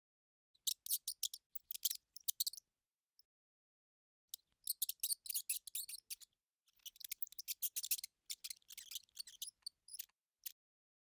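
Mouse sound effect: rapid, high-pitched scratchy clicking, like tiny claws scrabbling or teeth gnawing, in bursts of a second or two with silent pauses between them.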